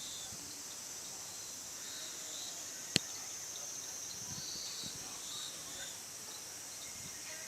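Steady high-pitched insect chirring, with one sharp click about three seconds in.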